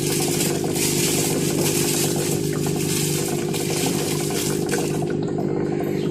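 Aquarium filter running: a steady low hum under a water-like hiss, and the hiss fades away about five seconds in.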